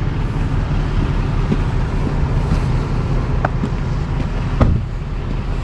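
Truck engine idling steadily, with a couple of sharp clicks, the louder one a little over four and a half seconds in.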